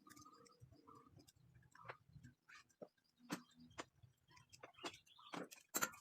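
Faint, irregular light clicks and taps at an uneven pace, with two louder knocks close together near the end.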